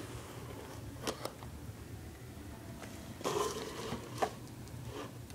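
Clear plastic packaging rustling and crinkling as it is handled, in a few short spells, the longest about three seconds in, with a sharp tap just after.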